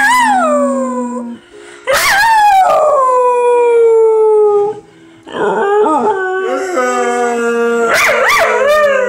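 A dog howling: long drawn-out calls that slide down in pitch, with short breaks between them about two and five seconds in. The last call wavers up and down in short broken pieces.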